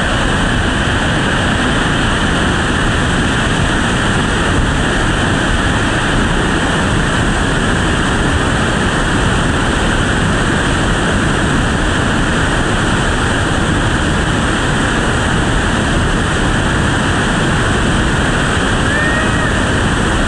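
Whitewater rapids rushing: a loud, even noise that doesn't let up.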